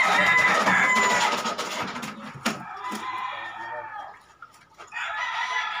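A rooster crowing: a long held call at the start and another near the end, with a single sharp knock in between.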